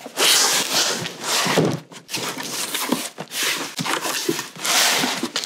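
Cardboard shipping box being opened: a box cutter slicing through the packing tape, then the flaps and the contents scraping against the cardboard. It comes as several rasping bursts, one long one followed by three shorter ones.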